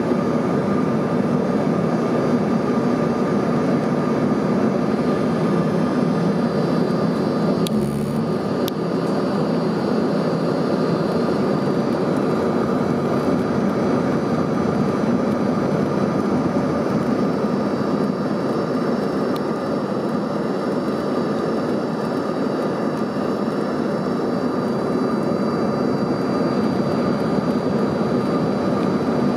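Steady cabin noise inside an Embraer ERJ-135 regional jet on approach: the rush of air and the drone of its rear-mounted Rolls-Royce AE 3007 turbofans, with a thin steady whine on top. A couple of faint clicks about eight seconds in.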